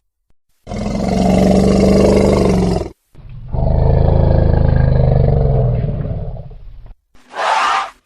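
Elephant vocalising: two long, low roars one after the other, then a short higher call near the end.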